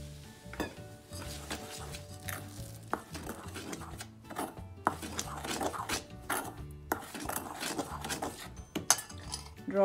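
Metal spoon scraping and clinking against a stainless steel bowl in quick, irregular strokes, stirring hot oil into gram flour.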